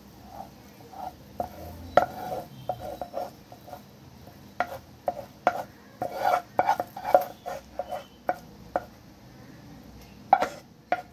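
Wooden spatula scraping and knocking against a metal kadai as thick, sticky sweet mixture is scraped out into a tray: a string of irregular knocks and scrapes, with sharper knocks about two seconds in, around seven seconds and near the end.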